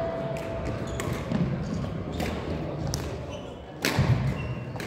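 Badminton play: sharp racket strikes on the shuttlecock every second or so, with the loudest cluster of hits near four seconds in, over shoes squeaking on the court floor.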